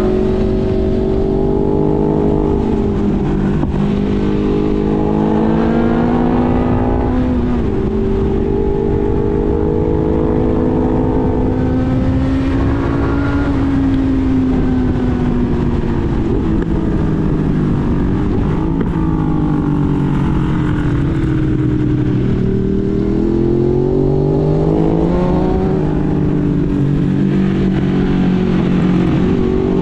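Motorcycle engine pulling hard through the revs, its pitch climbing under acceleration and dropping sharply at gear changes several times, over steady wind rush.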